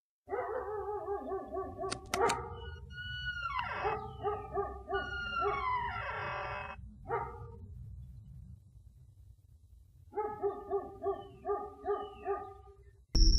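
A dog whining and howling in high, wavering, gliding cries, then a run of short, quick yelps, about five a second, near the end. A sharp click sounds about two seconds in.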